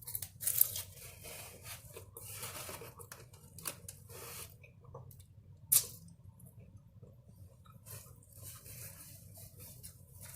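Eating a taco close to the microphone: bursts of crunching and chewing, with a few sharp clicks, the loudest about halfway through.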